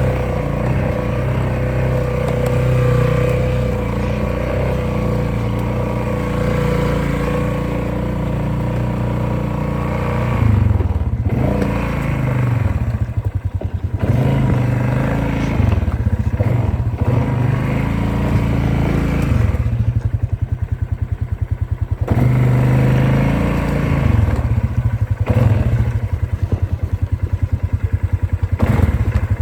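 Polaris off-road vehicle engine running under way: steady at first, then revving up and dropping back again and again with the throttle, settling briefly to a low, evenly pulsing idle about two-thirds through before pulling again.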